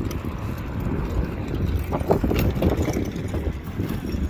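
Advancing aa lava front: a cluster of sharp cracks and clinks as crusted lava blocks break and tumble about two seconds in, over a low wind rumble on the microphone.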